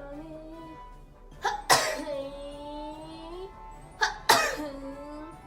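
Two sneezes from girls, about two and a half seconds apart, each a short catch of breath followed by a sharp burst. After each sneeze a steady pitched tone is held for about a second and a half.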